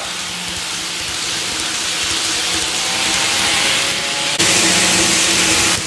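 N-scale model trains running on the layout track: a steady rushing rumble of small wheels on the rails with a low motor hum. About four seconds in it jumps abruptly to a louder, hissier sound.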